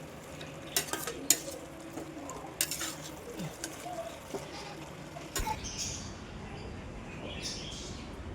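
A metal spoon clinking and scraping against a cooking pot, with a few sharp clinks in the first three seconds.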